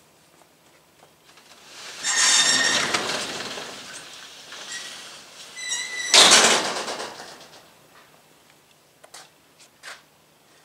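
Corrugated steel roller door being rolled up: a metallic rattle in two long runs, the second louder. A few light clicks come near the end.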